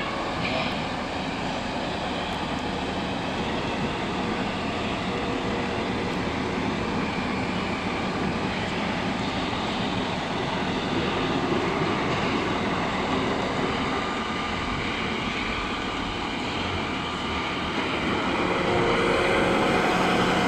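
Diesel engine of a Shacman Delong 430-hp tractor unit running steadily at idle, growing a little louder near the end.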